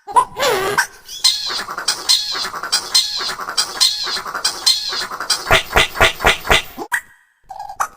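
Wordless cartoon character vocal sounds, squeals and squeaks, chopped and processed with audio effects. A falling squeal comes near the start, and a rapid run of sharp thumps comes about five and a half seconds in.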